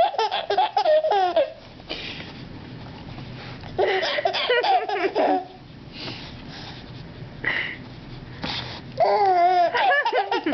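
A young child laughing in high-pitched, squealing bouts: a burst at the start, another about four seconds in, and a third near the end, with a few short breathy bursts in the pauses between them.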